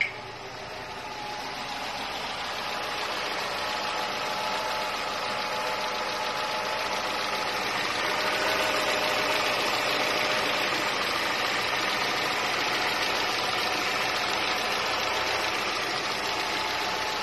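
Car engine idling steadily, growing louder over the first several seconds as the microphone moves from the cabin to the open engine bay, then holding even. At idle it runs normally; the engine's fault, shaking and lack of power, appears only under hard throttle.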